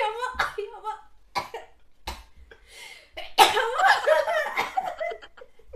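A person coughing and sneezing, nose irritated by sniffed snuff powder: a few short sharp bursts, then a longer, louder fit about three and a half seconds in.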